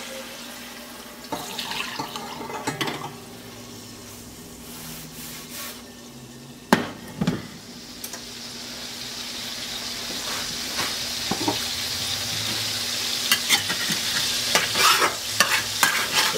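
Residual oil in a carbon-steel wok beginning to sizzle, the hiss growing steadily louder over the second half. About seven seconds in the wok is set back on the glass cooktop with two sharp knocks, and near the end a metal spatula scrapes and stirs in the pan.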